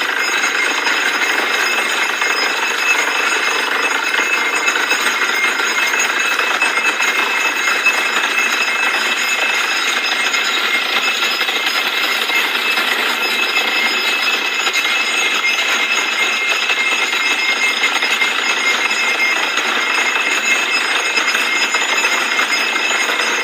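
Borewell drilling rig running steadily: a loud, unbroken mechanical din from the drilling, with a steady high whine over it.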